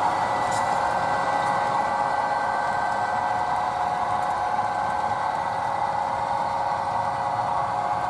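Steady whirring hum from HO-scale model trains running, the motor and wheel noise holding several even tones with no break.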